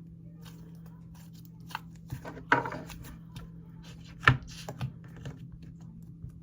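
Thick bar slime being pressed and stretched by hand, giving scattered clicks and pops, with a short crackling burst about two and a half seconds in and a louder snap about four seconds in.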